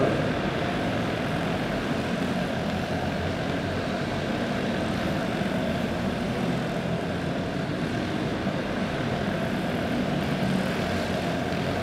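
Several OHV clone-engined dirt karts, small single-cylinder four-stroke engines, running together at racing speed around the track as a steady, overlapping engine drone.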